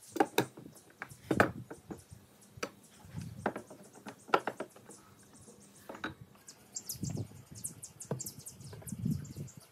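Steel pipe clamps knocked and clattered as they are laid down and shifted on a wooden workbench: a series of irregular knocks of metal pipe and clamp heads on wood, with lighter, faint high ticks in the second half.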